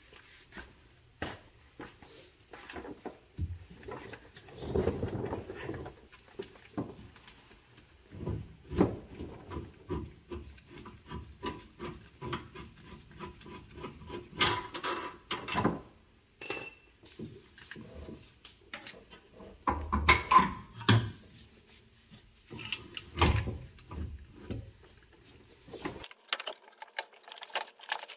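Irregular knocks, scrapes and rubbing of metal parts as a Jeep Wrangler JK's steering gear is worked loose by hand under the vehicle, hung up on the steering-linkage pinch bolt. A few louder clunks come about two-thirds of the way through.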